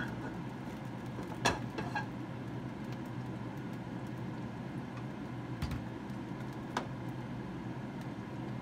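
A steady low kitchen hum with a few light clicks and clinks of a spatula and a glass oil bottle at a frying pan. The loudest click comes about one and a half seconds in.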